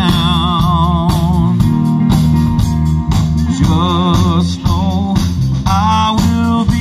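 Live band playing amplified electric guitars over a drum kit, with a wavering, vibrato-laden lead melody and a steady drum beat.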